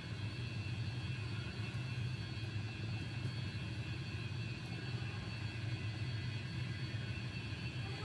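Steady low machine-like hum with a faint even whine above it, unchanging in level.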